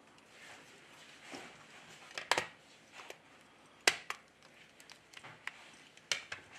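Samsung A6+ phone's frame and housing handled and pressed together by hand: light rustling with a few sharp plastic clicks, the loudest about two and four seconds in, another about six seconds in.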